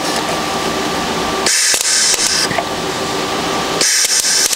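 Stahlwerk MIG 175 ST IGBT welder arc crackling in two short bursts of about a second each, about a second and a half in and again near the end, as it welds a thin steel patch panel. Between the bursts, strong wind rushes on the microphone.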